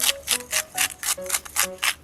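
Background music with a quick, even run of sharp taps or clicks, about six a second.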